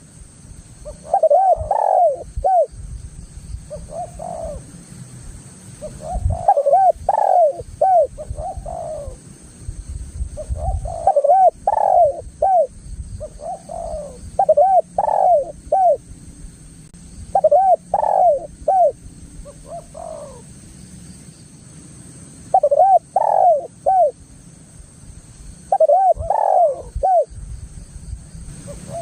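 Spotted dove (tekukur) cooing: short phrases of a few arched, rising-and-falling coo notes, repeated every two to three seconds, over a low rumble.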